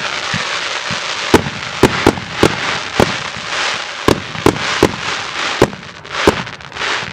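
Multi-shot fireworks battery (cake) firing: about a dozen sharp bangs at irregular intervals over a continuous hissing crackle from the bursting effects.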